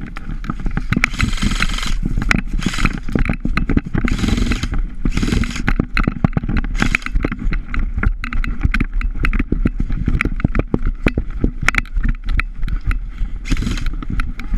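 Rapid, irregular knocks, scrapes and rattles of a player's gear and footsteps while on the move, picked up close on a GoPro action camera, over a constant low rumble of wind and handling noise, with several longer hissing bursts.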